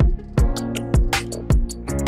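Background music with a drum beat of about two hits a second under sustained pitched notes.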